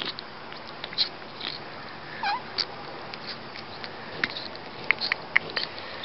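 Ginger kitten feeding from a milk bottle: wet clicking and smacking at the rubber nipple as it sucks and bites, with a short mew about two seconds in.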